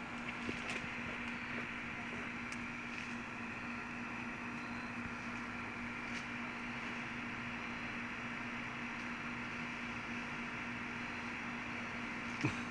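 Steady mechanical hum with one constant low tone, broken by a few faint clicks and a brief louder knock near the end.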